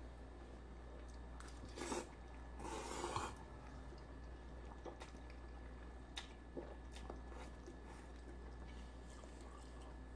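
Ramen noodles being eaten from a bowl: a short slurp about two to three seconds in, then quiet chewing with a few faint clicks.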